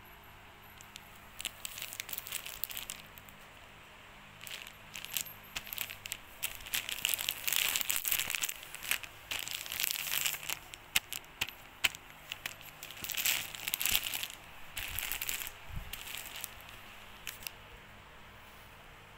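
Plastic wrapping of Kleenex pocket tissue packs crinkling and crackling as fingers handle and press it, in irregular bursts that start about a second and a half in and stop a couple of seconds before the end.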